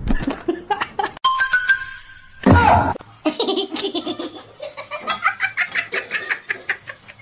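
A person laughing hard in quick, repeated ha-ha pulses, starting about halfway through and running on for several seconds.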